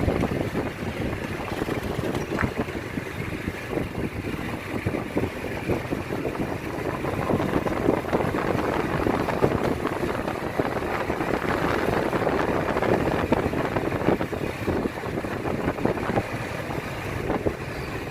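Running noise of a moving motorbike, with wind buffeting the microphone; a dense, unsteady rush without a clear engine note.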